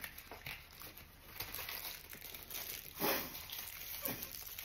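Thin paper wrapper of a polvorón crinkling as it is handled and unwrapped, with a louder rustle about three seconds in.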